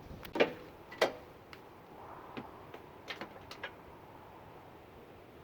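A scatter of sharp clicks and knocks, the loudest two about half a second and one second in, then a few lighter ones over the next two and a half seconds.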